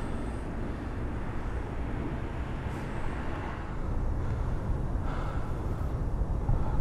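Steady low rumbling outdoor ambience with no distinct events, joined by a couple of brief faint hisses.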